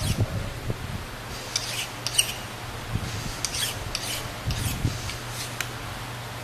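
Fine hand file drawn across the edge of a steel plate in light, uneven scraping strokes, deburring the edges. A steady low hum runs underneath.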